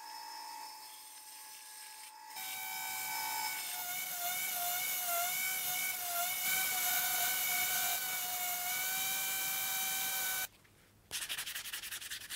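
Angle grinder fitted with a sanding disc, running with a steady high whine that wavers slightly in pitch as it grinds an oak peg round; it starts about two seconds in and stops shortly before the end. Near the end, quick rasping strokes of a sanding block worked by hand on the wood.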